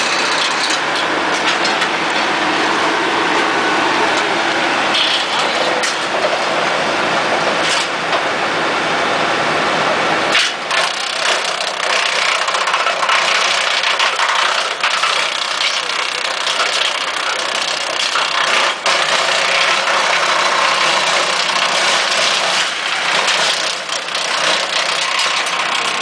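Tractor-PTO-driven wood chipper running: a loud, steady mechanical din with occasional sharp cracks. About ten seconds in the deep low rumble falls away and the noise becomes lighter and higher.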